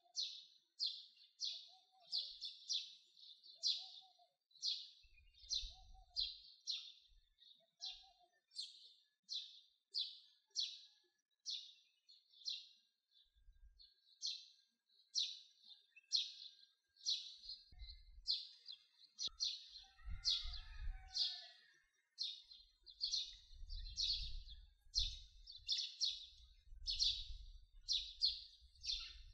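A bird chirping over and over, about two short, high chirps a second, with a few lower notes in the first several seconds. In the second half there is faint low rumbling underneath.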